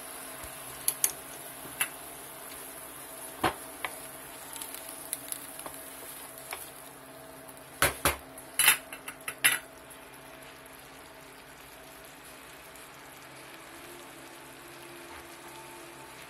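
Mushrooms and mixed vegetables sizzling and simmering in a wok, a steady hiss, while a utensil knocks and scrapes against the pan as they are stirred. There are scattered knocks early on and a loud cluster about eight to nine and a half seconds in.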